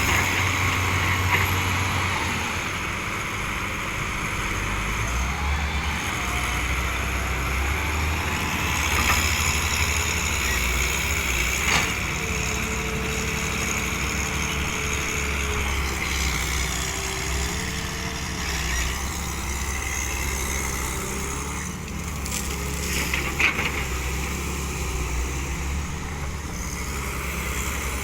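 Heavy construction machinery running steadily with a low diesel engine hum, with a couple of sharp knocks.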